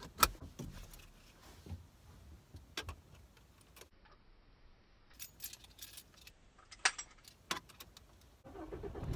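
Car keys jangling, with scattered clicks and knocks. Near the end a steady low running sound comes in: the car's engine starting up and idling.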